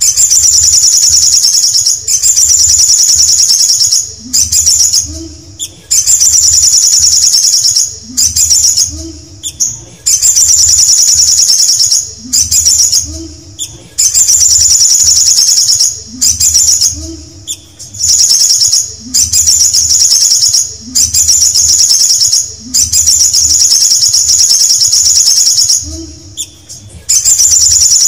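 Male olive-backed sunbird singing: a high, fast trill about a second and a half long, repeated over and over roughly every two seconds.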